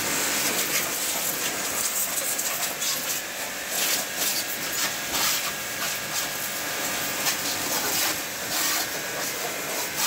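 Small pressure washer's high-pressure water jet spraying a motorcycle's wheel, fork and engine: a loud steady hiss that swells and fades as the jet sweeps over the metal.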